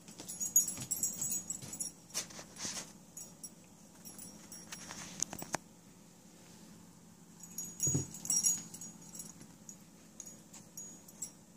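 Toys hanging from a homemade cat tree jingling and clicking in irregular bursts as they are batted and jiggled, with a single dull knock about eight seconds in.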